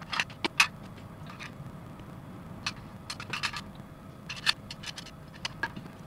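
Hard plastic clicking and tapping as small plastic model kit parts and a clear acrylic display case are handled, in scattered clusters of sharp clicks, the loudest about half a second in and again about four and a half seconds in.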